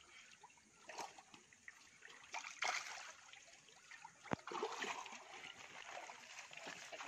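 Shallow, muddy pond water splashing and trickling as people wade through it dragging a mesh fishing net, with a few louder splashes and a sharp click about four seconds in.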